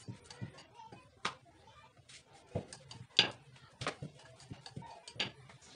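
Scattered light knocks and clicks of flatbread dough being pressed and handled on a wooden rolling board, the sharpest about three seconds in.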